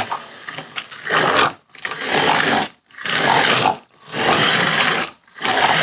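Toy radio-controlled monster truck's electric motor and gears whirring in short bursts of about a second, about five times, as the throttle is pulsed on and off.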